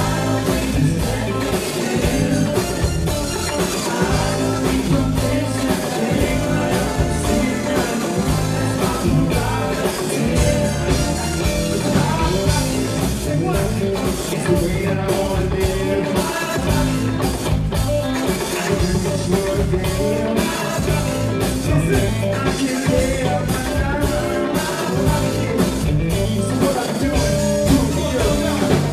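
Live band playing a song, with lead singers over drums, electric guitar and keyboards, at a steady level throughout.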